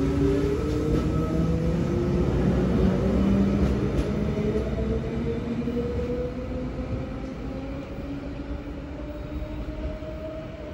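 Double-deck electric intercity train pulling away from a station platform. Its traction motors whine, rising slowly in pitch as it speeds up, over a wheel-and-rail rumble that fades as it draws away.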